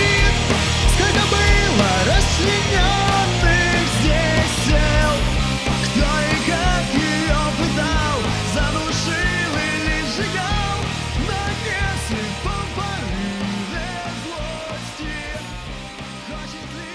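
Punk-rock band music, a wavering lead melody over bass and drums, fading out gradually.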